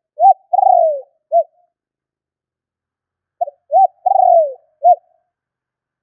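Spotted dove cooing: two phrases about three and a half seconds apart, each a short note, a rising-and-falling note, a longer note that slides down in pitch, and a short closing note.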